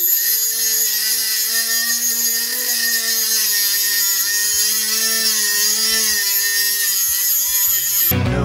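Dnipro-M MG-12 12 V cordless rotary tool spinning a thin abrasive cut-off disc and grinding through a self-tapping screw. It makes a steady high whine whose pitch wavers slightly as the disc is pressed in, and it cuts off shortly before the end.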